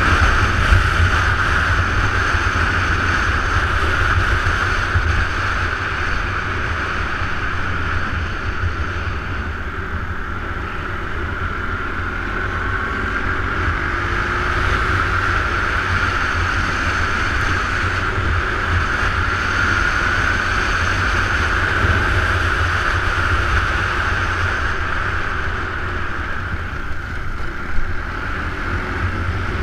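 Wind buffeting the camera microphone while riding a motor scooter at speed, over the steady drone of the scooter's engine.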